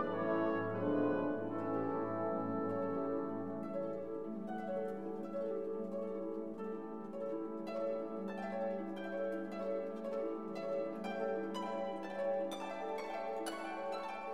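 Background instrumental music: held tones with plucked string notes over them. The plucked notes come thicker in the second half.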